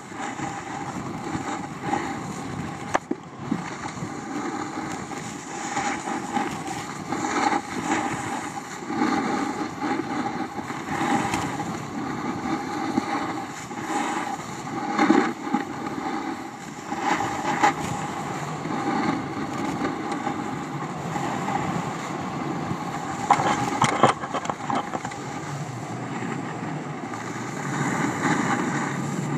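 A snowboard sliding and carving down packed snow. The edge scrape and wind on the pole-mounted camera's microphone make a continuous rough hiss that rises and falls unevenly.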